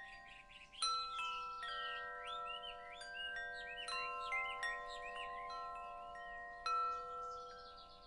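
Wind chimes struck irregularly, about a dozen times, their clear tones overlapping and ringing on, with the loudest strikes about a second in and near the end. Small birds chirp steadily behind them.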